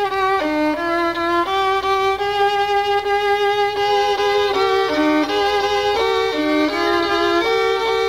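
Fiddle music: a violin playing a quick melody, its notes changing every third to half second.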